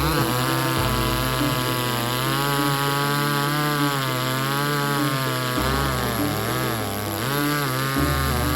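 Inexpensive gas chainsaw cutting into a 12-inch hardwood log, its engine speed sagging and picking up again as the chain bites, with the deepest drop about two-thirds of the way through.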